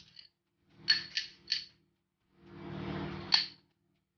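Light clicks and taps of a utensil against a dish as butter is put on the hot corn. Three come in quick succession about a second in and one more comes about three seconds in.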